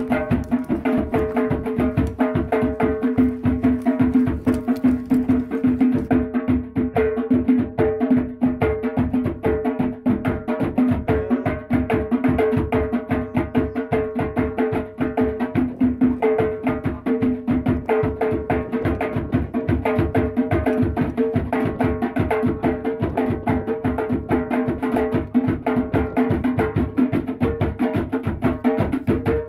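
Background music: a percussion-led track with a fast, steady beat of hand-struck drums and knocks over held low notes.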